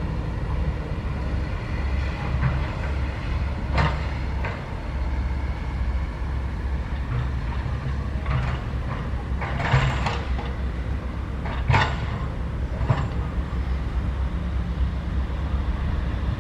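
Sany SY135F excavator's diesel engine running steadily, with about six sharp metallic clanks and scrapes over it as it digs soil.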